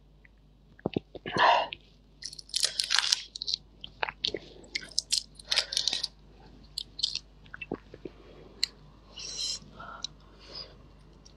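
Shell of a large red prawn being peeled by hand: irregular crackling clicks and short rustles as the shell cracks and comes away, then biting and chewing on the prawn meat near the end.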